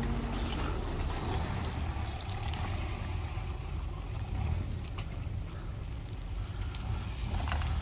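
Off-road vehicle engine running with a steady low rumble, with wind noise on the microphone and a few faint knocks.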